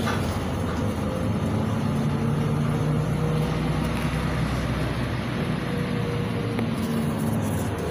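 Cabin sound of a LiAZ 5292.71 city bus under way: its MAN E0836 compressed-natural-gas engine and drivetrain running steadily, with road noise. The engine note drops about five seconds in.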